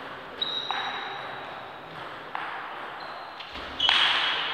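Table tennis rally: the ball clicking off the rackets and the table, several sharp hits roughly half a second to a second apart, the loudest near the end.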